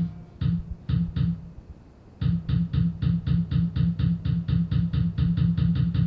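Band music from a 1992 cassette recording: a few scattered hits, a short break about two seconds in, then a steady pounding beat of about four strokes a second, each a low thump with a sharp crack on top.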